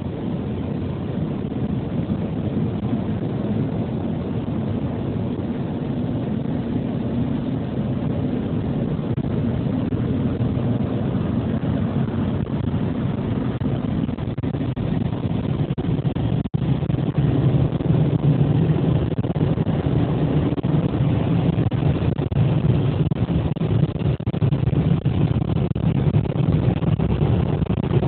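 Automatic car wash machinery running with a steady, rushing rumble that grows louder about halfway through, just after a brief drop-out.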